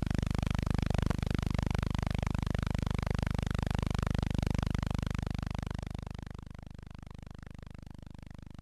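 No sound from the scene: only a steady low hum with hiss from the transfer of the silent film, dropping in level about six seconds in.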